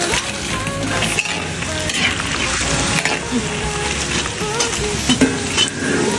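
Starch-battered pork tenderloin pieces frying in hot oil, with a steady sizzle.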